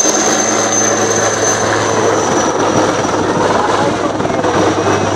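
HAL Rudra armed helicopter flying low and banking hard overhead: steady rotor and turboshaft engine noise, with a thin high turbine whine over a deep hum.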